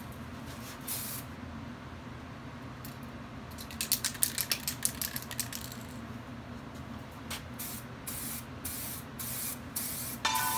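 Aerosol rattle can of clear coat: a stretch of rapid rattling as the can is shaken, then short spray passes hissing out over the last couple of seconds.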